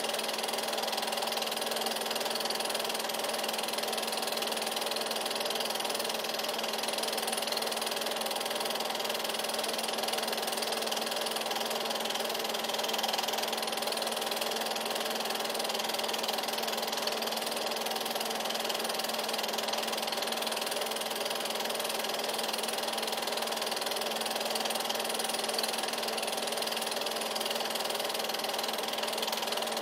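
Steady whirring of an 8mm film projector running, with a constant low hum and hiss and no other sound.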